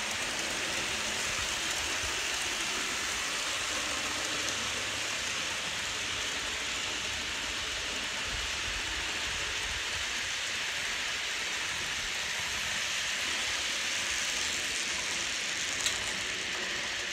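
Steady rushing hiss of a model freight train's cars rolling along the track close by, with one sharp click near the end.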